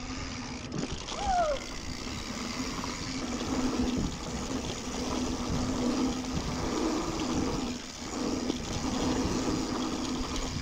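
Mountain bike rolling down a dirt trail: a steady rush of tyre and wind noise on a GoPro microphone, with a faint steady hum underneath.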